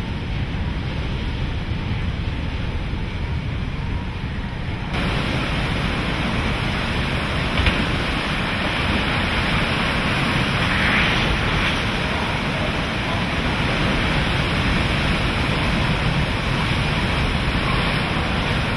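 Hurricane Katrina's wind blowing hard over churning storm-surge water, with heavy wind rumble on the microphone. The noise gets louder and fuller about five seconds in.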